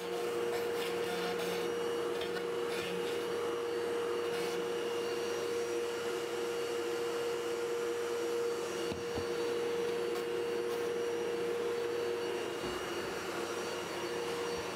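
Router spinning in a router table, running steadily with a high hum, alongside the dust extraction. In the first few seconds there is some uneven cutting noise as the guitar body is worked against the bit; after that the router runs free.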